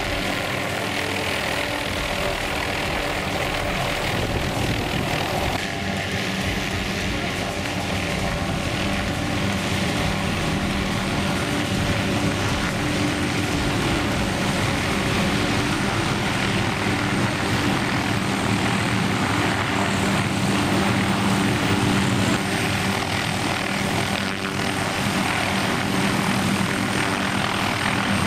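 MD 500-series light turbine helicopter hovering at close range, its turboshaft engine and rotors running with a steady, loud whine and thrum.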